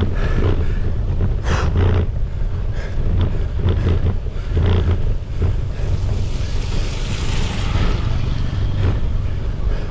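Cyclist gasping for air in heavy breaths, about one every second, from the strain of a steep 15% climb, over a steady rumble of wind on the microphone.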